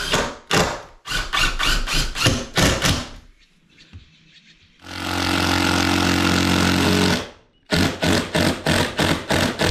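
Cordless impact driver driving screws into wooden door framing: rapid hammering bursts for the first three seconds, a steady motor whine of about two seconds in the middle that cuts off, then more hammering bursts near the end.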